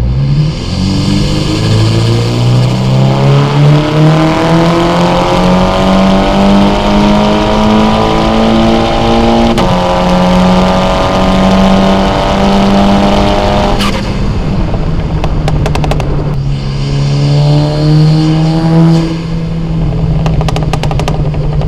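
Car engine and exhaust under hard acceleration, the revs climbing steadily and stepping down at a gear change, then climbing again. After a brief lift-off the car pulls once more and settles to a steady cruising drone near the end.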